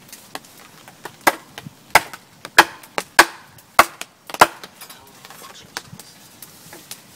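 Wooden baton knocking on the back of a hatchet to drive it into a bone-dry, hard log along a natural crack. Six sharp knocks land about two-thirds of a second apart, with lighter taps between them, and the strikes fade to faint taps for the last few seconds. The log is not splitting: the crack looks too shallow.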